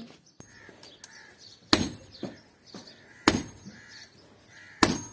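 Hammer striking metal on an anvil while forging a cleaver: three heavy blows about a second and a half apart, each ringing, with lighter taps between them.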